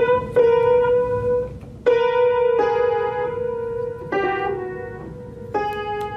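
A cat pressing piano keys with its paws: about six irregular strikes, single notes and two-note clusters, each ringing on and fading before the next.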